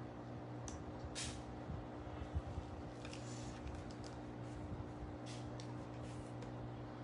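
Faint, short rustling and handling noises, a few scattered ones, over a steady low electrical hum.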